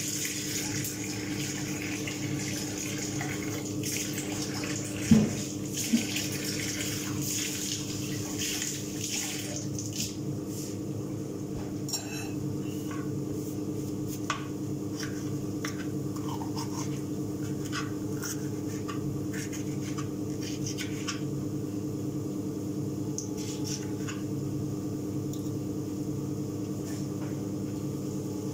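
Steady hum of a kitchen range hood's extractor fan, with a hiss over it for the first ten seconds or so and scattered clicks and knocks of kitchenware, the loudest a sharp knock about five seconds in.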